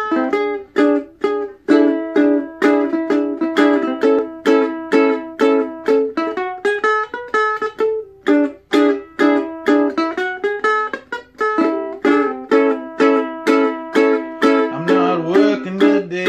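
Acoustic plucked-string instrument strummed in a steady rhythm of chords, about two strums a second, as a song's instrumental intro. A voice starts singing near the end.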